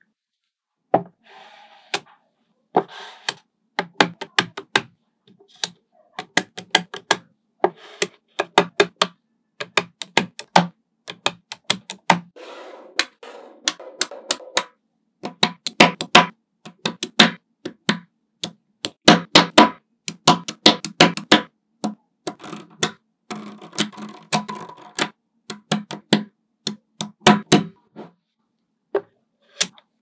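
Small magnetic balls clicking as they snap onto one another, in quick runs of sharp clicks with short pauses between, and a soft rattle now and then as balls roll against each other.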